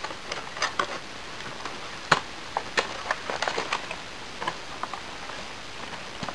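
Cardboard phone box being handled and opened by hand: scattered clicks, taps and light scrapes of the cardboard flaps, the sharpest click about two seconds in.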